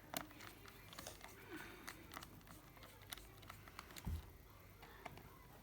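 Faint, scattered light clicks and taps, with one dull thump about four seconds in.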